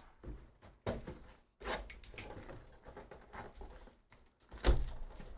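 A cardboard trading-card box being picked up and handled: light rustling and a few soft knocks, with one louder thump near the end.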